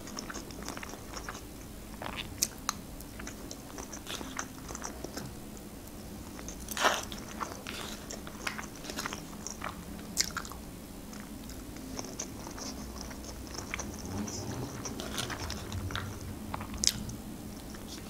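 Close-miked chewing and mouth sounds of a person eating rice and grilled meat, with scattered soft clicks as a plastic fork picks at food in aluminium foil takeaway trays. One sharper click stands out about seven seconds in.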